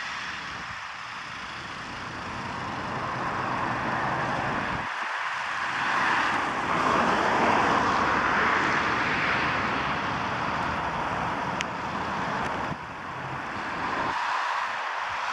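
Road traffic noise of a Mercedes-Benz Sprinter ambulance van driving out onto the road and away: engine and tyre noise, loudest about six to ten seconds in.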